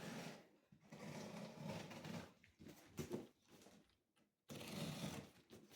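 Cardboard box and packaging being handled and opened: faint rustling and scraping in several short spells with brief pauses between them.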